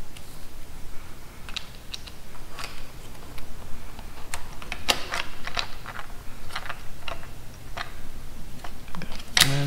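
Scattered light clicks and taps at irregular intervals, a few each second, from plastic clamp parts and a screwdriver being handled and fitted together.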